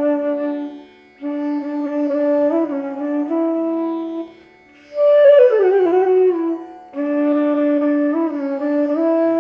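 Bansuri, a long bamboo transverse flute, playing sustained legato melodic phrases separated by short breath pauses, with a descending gliding run about halfway through.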